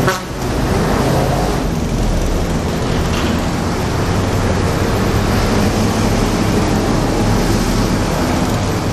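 Steady street traffic noise with a vehicle engine running close by, a low even hum under a wash of road noise.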